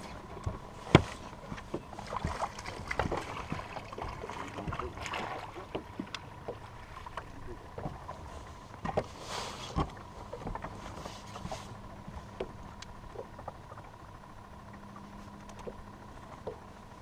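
Small fishing boat on the water: scattered knocks and bumps of gear and feet on the deck, the loudest about a second in, over a faint steady hum, with a few brief rushes of noise.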